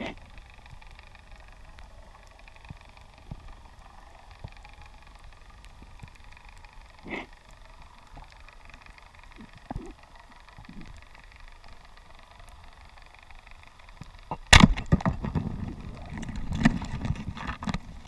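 Underwater ambience heard through a camera housing, a low steady hiss with faint scattered clicks. About three-quarters of the way through comes a sudden loud crack from a band-powered speargun firing, followed by a few seconds of loud rumbling, clattering handling noise.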